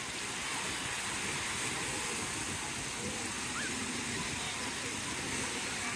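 Steady wash of ocean surf, with faint distant crowd voices mixed in.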